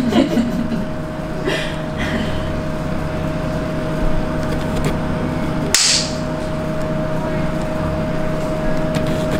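Steady electrical hum of running TMS lab equipment, a Magstim stimulator with a cooling fan, holding one constant mid-pitched tone over a low drone. There are a few faint knocks, and one short, sharp burst of noise about six seconds in.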